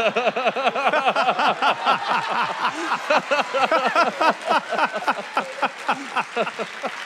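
Theater audience laughing loudly and cheering, many voices at once, with clapping mixed in.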